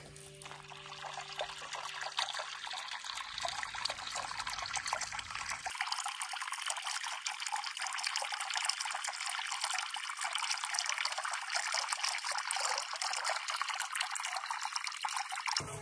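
Water gushing steadily out of the open end of a black hose and splashing onto grass and rocks, a continuous rushing flow.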